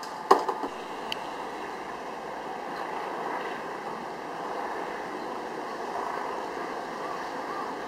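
Steady outdoor background noise with wind on the microphone. A sharp knock comes just after the start, the loudest sound, and a lighter click follows about a second in.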